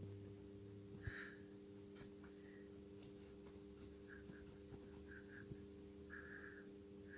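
Near silence under a faint steady hum, with a cat's claws lightly scratching at a fabric blanket.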